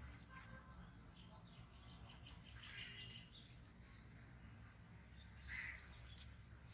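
Faint outdoor ambience with two short bird chirps, about three seconds in and again near the end.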